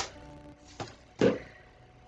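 Faint background music with steady tones, under a short click and then a louder dull knock about a second in, from handling a paper envelope and card.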